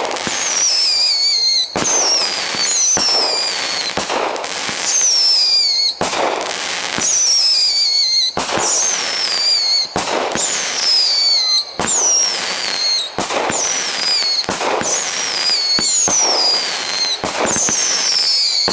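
Tannerite S19 firework cake firing a rapid series of shots, a sharp bang about every second, each carrying a high whistle that falls in pitch as the shells burst into glittering stars.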